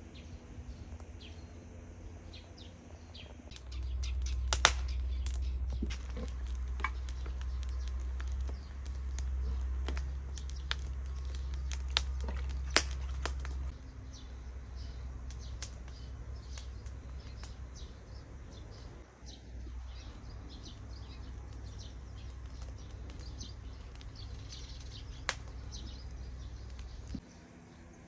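Songbirds chirping, short calls scattered throughout, over a low steady rumble that changes level abruptly a few times.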